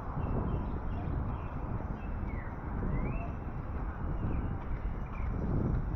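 Birds chirping in short, scattered calls over a steady low rumble of outdoor background noise.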